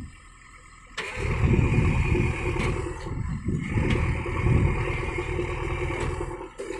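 JCB 3DX backhoe loader's diesel engine working loud under load, coming in suddenly about a second in and dropping away just before the end.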